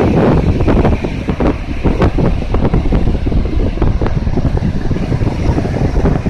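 Strong wind buffeting the microphone in irregular gusts, over the wash of sea surf on the beach.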